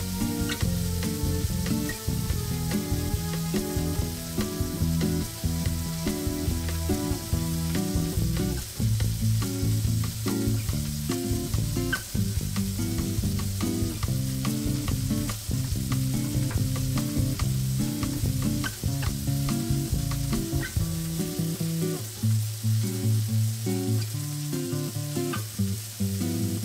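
Thick sirloin steak searing over medium heat in olive oil and garlic in a copper frying pan: a steady sizzle with scattered small pops of spitting oil. Background music with plucked notes plays underneath.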